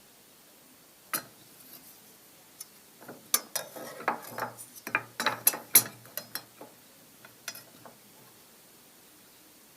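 A run of irregular mechanical clicks and clattering knocks, thickest and loudest in the middle, then trailing off.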